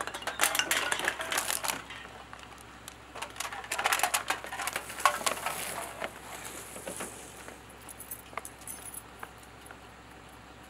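Aluminium cans clattering and rattling onto pavement, in quick scattered clicks and knocks that are busiest at the start and again around four seconds in, then thin out to faint rattles.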